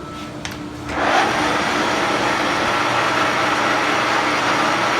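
Turnmaster 15 x 50 engine lathe: a click or two, then from about a second in the machine's gear drive starts running with a loud, steady mechanical whirr.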